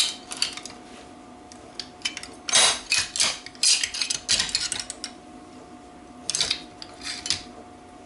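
Metal parts clinking and clattering in irregular bursts as a motorcycle crankshaft assembly is turned over and reclamped in a vise. There are three clusters: one at the start, a busier run from about two and a half to five seconds in, and a shorter one near the end.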